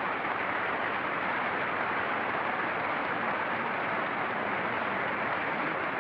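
A large audience applauding steadily, a dense unbroken sound of many hands clapping, on an old recording with little treble.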